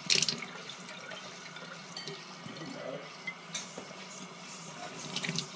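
Kitchen faucet running cold water into a plastic bottle, a steady stream splashing into its neck, with a few short sharp clicks, the loudest right at the start.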